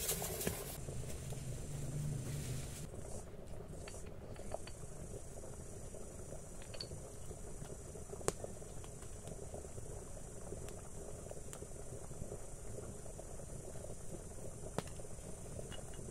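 For the first few seconds, a hiss of broth boiling in a large pot. It then gives way to a steady high-pitched insect chorus, with a couple of light clicks.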